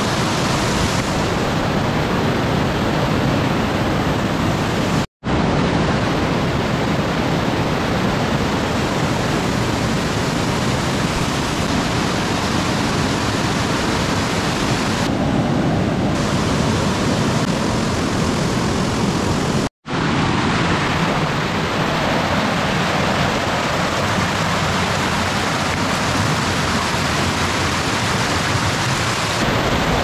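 Waterfall rushing down a rocky chute: a loud, steady rush of water. It cuts out for an instant twice.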